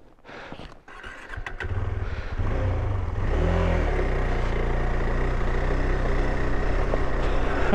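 KTM 390 Adventure's single-cylinder engine, quiet for the first second or so, then picking up and running steadily under load as the bike climbs a dirt track, with a brief drop and rise in pitch about three and a half seconds in.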